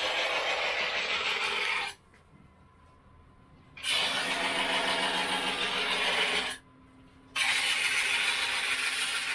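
Steel knife being ground on a motor-driven sharpening stone: a steady harsh grinding hiss. It cuts off abruptly twice, for about two seconds a couple of seconds in and briefly near the end.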